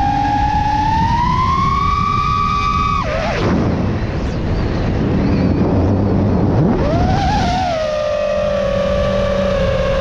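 FPV quadcopter's brushless motors and propellers whining, the pitch climbing under throttle. The whine drops away sharply about three seconds in, leaving a rush of wind noise. It swoops back up about seven seconds in and settles into a steadier, lower whine.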